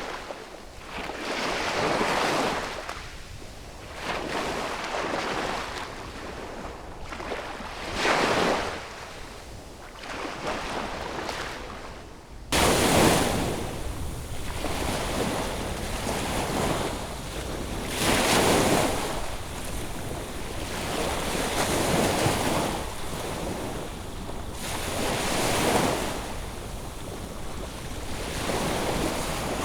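Ocean waves breaking and washing up on a beach, a swell of surf every few seconds. About halfway through, the sound cuts abruptly to a different recording of the surf, fuller and with a steady low rumble from wind on the microphone.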